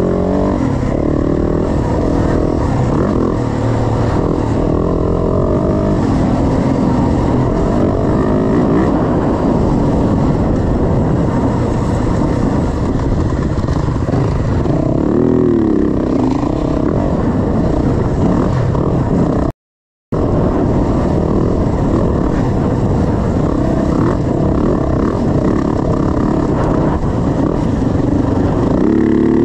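Dirt bike engine running hard under load from the rider's own bike, the revs rising and falling as it is ridden along a trail. The sound cuts out completely for a moment about two-thirds of the way through.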